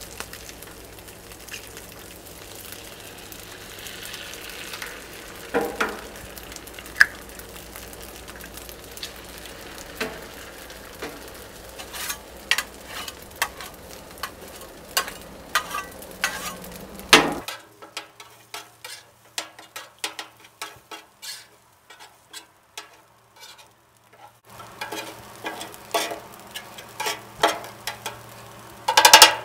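Food sizzling on a Blackstone steel griddle while metal spatulas scrape, tap and clatter on the flat-top as the chicken fried rice is stirred and turned. The sizzle fades for several seconds midway while the spatula clicks continue, and there are sharp clacks about two-thirds of the way through and at the very end.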